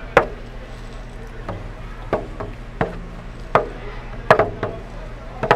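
Fingers tapping a hand-held frame drum, about eight uneven taps, some giving a short ringing tone after the strike.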